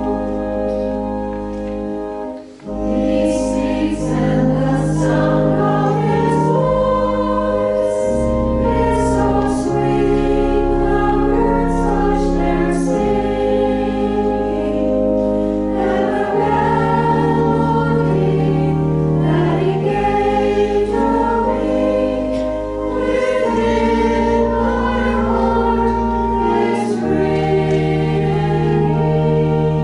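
A hymn sung by many voices together over long held low accompaniment notes, with a brief pause between phrases about two and a half seconds in.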